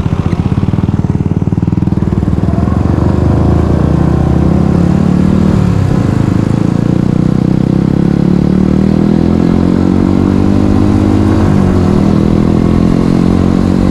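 Motorcycle engine running under way, pulsing at low revs at first, then pulling harder with its pitch rising; the pitch dips briefly twice.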